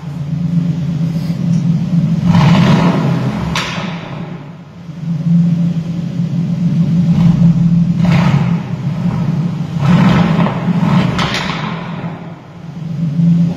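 2019 Aston Martin Vantage's 4.0-litre twin-turbo V8 revved in several long swells, with a few sharp exhaust cracks among them.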